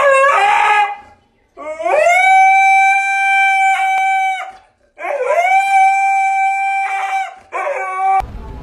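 A dog howling: a short wavering howl at the start, then two long howls that each rise and then hold one steady pitch for a couple of seconds, and a brief one near the end.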